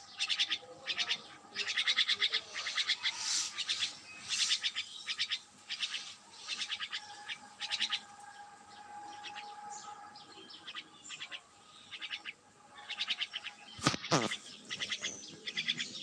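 Small birds chirping in quick repeated bursts, each a rapid string of high chirps lasting about a second, thinning out midway and picking up again near the end. A short loud swish cuts across them near the end.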